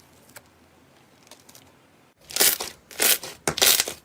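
Slime being pressed and squeezed by hand after air has been worked into it, its trapped bubbles popping and crackling. A few faint clicks at first, then from about halfway loud crackling pops in bursts about every half second.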